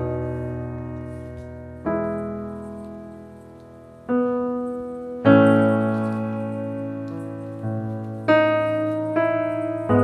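Slow background piano music: soft chords struck every one to two seconds, each left to ring and fade away.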